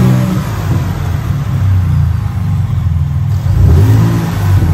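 Ford Raptor's 3.5L EcoBoost twin-turbo V6 engine revving. The pitch rises at the start, settles, then climbs again a little past halfway before dropping back near the end.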